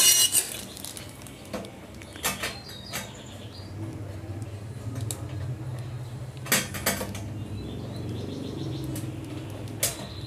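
Metal kitchen equipment being handled: a handful of separate sharp clinks and knocks as a metal spiral potato cutter and a stainless-steel wire rack are moved and set down on a metal stove stand.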